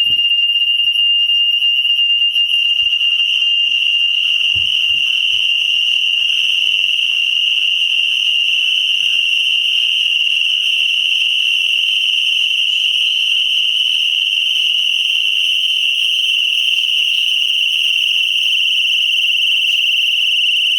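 GE Simon XT home security system's alarm siren sounding a loud, steady, high-pitched tone without a break. It is the burglary alarm, set off by walking past an armed motion sensor.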